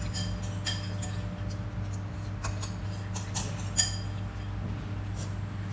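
Cutlery clinking against a plate several times during a meal, short ringing clicks with the loudest near the end, over a steady low hum.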